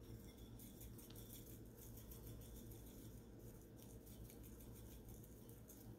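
Faint patter of Tajín chili powder being shaken from its bottle onto a plate, over a low steady hum.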